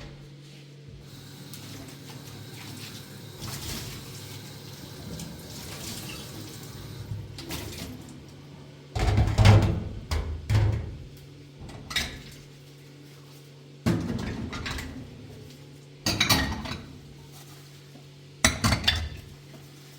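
Water running softly for several seconds, then dishes and pots being handled, clattering loudly half a dozen times.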